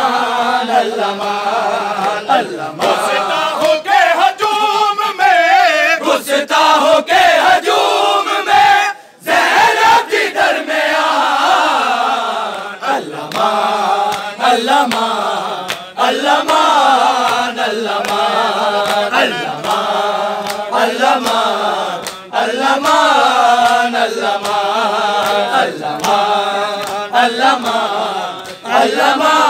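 Group of men chanting a Shia noha (Urdu lament) together, with sharp hand slaps of matam, chest-beating, sounding in time through the chant. The chant breaks off briefly about nine seconds in.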